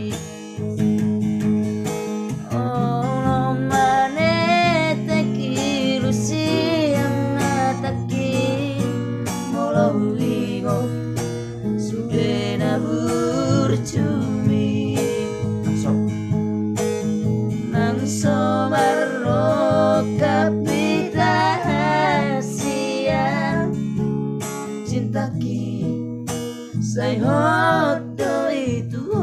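Two men singing together to a strummed acoustic guitar.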